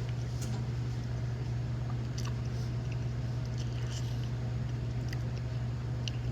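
Mouth noises of someone chewing and biting into a chicken biscuit: small wet clicks and smacks scattered through, over a steady low hum.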